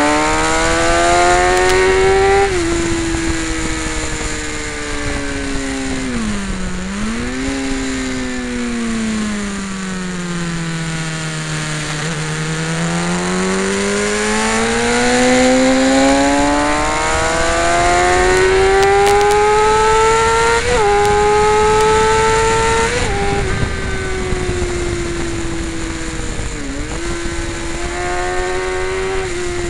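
Sport motorcycle engine heard from a camera mounted on the bike, ridden hard on a race track, with steady wind rush. The pitch climbs under acceleration and drops suddenly at upshifts about two seconds in and twice in quick succession later on. It dips sharply with braking and downshifting around six seconds, sinks slowly through a long corner, then climbs steadily for several seconds on the exit.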